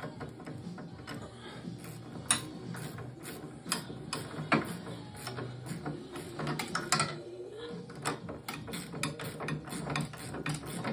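Ratcheting combination wrench clicking in irregular runs as a snowmobile ski bolt is turned in, with a few louder clicks.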